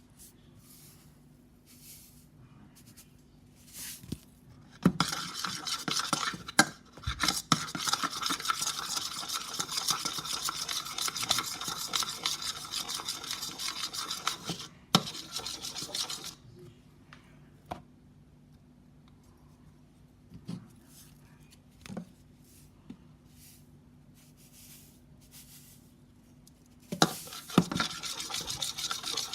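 Slime mixture being stirred in a bowl, a utensil scraping round it for about ten seconds with a few clicks against the bowl. Then a few separate light knocks, and the scraping starts again near the end.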